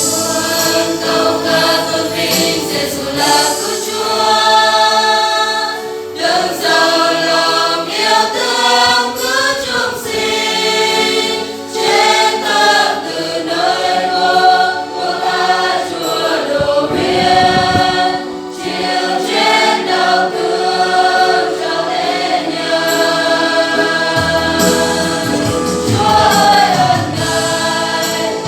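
A choir singing a Protestant praise hymn to the Lamb, several voices together with music behind them.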